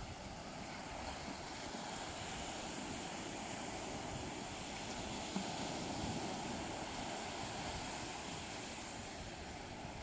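Small waves breaking close by and foaming up a sandy shore: a steady surf wash that swells through the middle and eases near the end.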